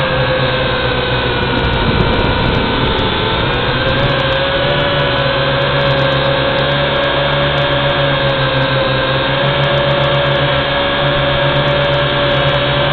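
WLToys V686G quadcopter's motors and propellers whining steadily in flight, heard close up from the drone's own camera. The pitch wavers slightly as the throttle changes, dipping a little about two seconds in and rising again a few seconds later.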